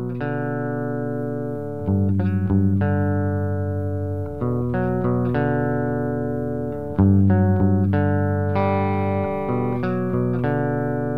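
Ibanez RG370DX electric guitar played through a Line 6 POD 2.0 on its Line 6 Clean amp model: clean chords and single notes, each struck and left to ring out, a new one every second or two.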